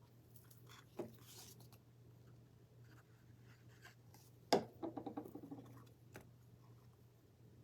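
Small wooden craft pieces handled on a tabletop: a light knock about a second in, then a sharp clack about four and a half seconds in followed by a quick run of small clicks, over a faint steady hum.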